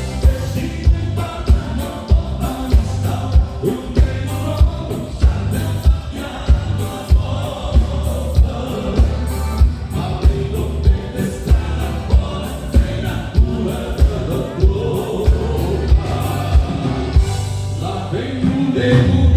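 Live gaúcho dance music from a band, with a steady beat of about two low strokes a second under the melody.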